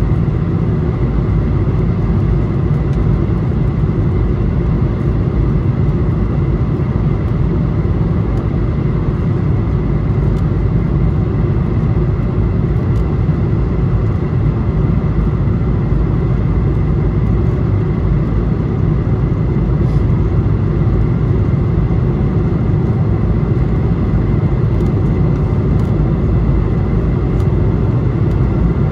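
Steady cabin noise aboard an Airbus A220-300 in its initial climb after takeoff: the rumble of its Pratt & Whitney PW1500G geared turbofans at climb power and the rush of air past the fuselage, heaviest in the low end, with a faint steady high whine.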